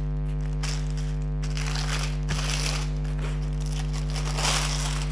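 Clear plastic protective film on a diamond painting canvas crinkling and rustling as it is lifted and pressed back down by hand. It comes in short spells, loudest about four and a half seconds in, over a steady electrical hum.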